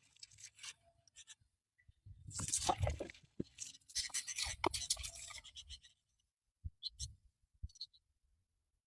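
Irregular scratchy rustling and scuffling for a few seconds, followed by a few short clicks near the end.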